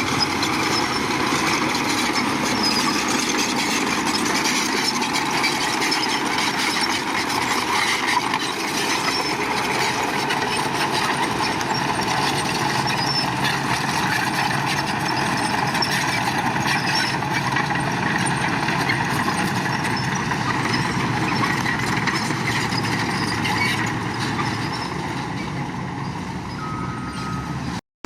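Heavy diesel construction machinery running steadily on a road-building site. The sound eases a little near the end and cuts out abruptly for a moment just before it finishes.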